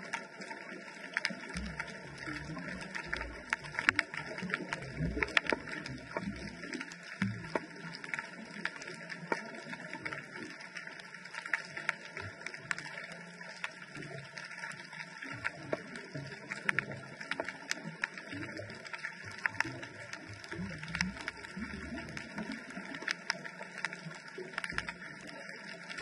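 Underwater ambience picked up by a GoPro inside its waterproof housing: a steady hiss scattered with many sharp clicks and crackles, and irregular low rumbles.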